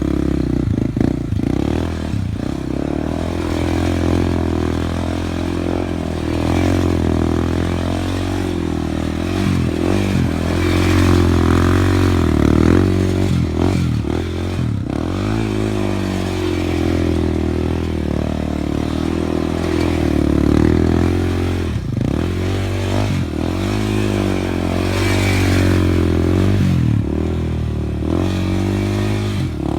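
A motor vehicle engine runs steadily under load, its pitch dropping and climbing back several times as the throttle is eased and opened again, with rattling and scraping noise over it.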